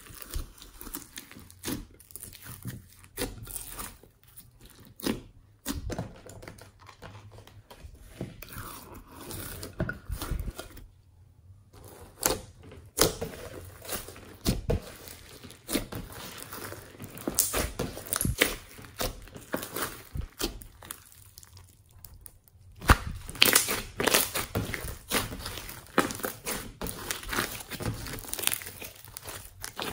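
Hands kneading and squeezing thick fluffy slime mixed with foam beads: sticky squelches and a run of irregular crackles and pops, with a brief silent gap about eleven seconds in.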